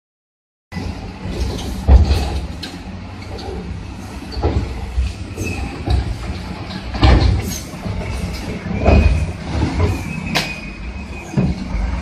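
Diesel engines of wheel loaders running under load, with repeated heavy metal clanks and crashes every second or two as the machines ram each other.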